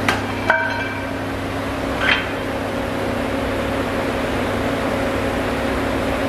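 A weight plate slid onto a machine bar's sleeve clanks against the plate already loaded there, ringing briefly like struck metal, about half a second in; a second, smaller knock follows about two seconds in. A steady background hum runs underneath.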